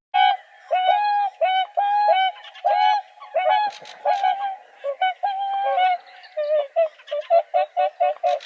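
Swans calling: a run of short, pitched calls, about two a second, that turns into quicker, shorter calls about six seconds in.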